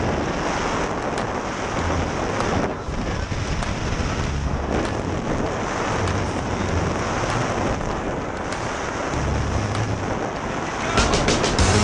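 Steady rush of freefall wind buffeting the camera's microphone during a tandem skydive.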